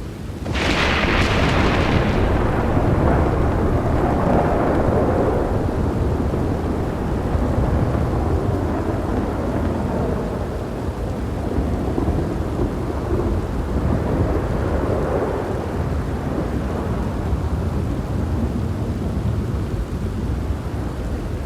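A thunderclap cracks sharply about half a second in and rolls into a long rumble that slowly fades, with steady rain falling throughout; a second swell of rumbling thunder comes about two-thirds of the way through.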